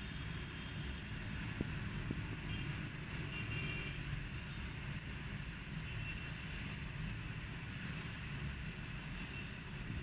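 Distant city road traffic of motorbikes and cars, a steady low rumble and hiss, with a few faint short high tones about two to four seconds in.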